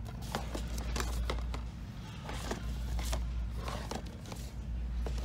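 Plastic DVD cases clicking and scraping against each other as they are pulled from and flipped through on a packed shelf, a dozen or so irregular small clicks over a steady low hum.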